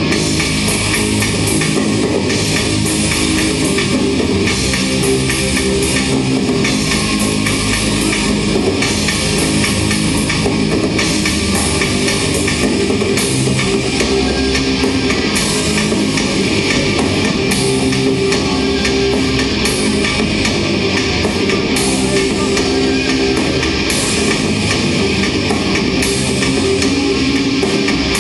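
Rock band playing a loud, steady instrumental passage on drum kit and guitars.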